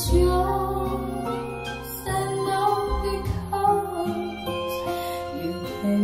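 Pop song with a sung vocal melody over bass, played through JBL Studio 530 bookshelf speakers and picked up in the room.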